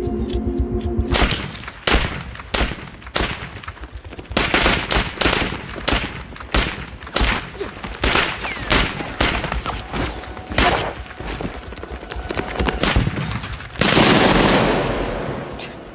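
Gunfire: a long run of sharp gunshot cracks at irregular spacing, some close together and some a second or more apart. A held music tone cuts off about a second in, and a louder, longer rush of noise starts about fourteen seconds in and dies away.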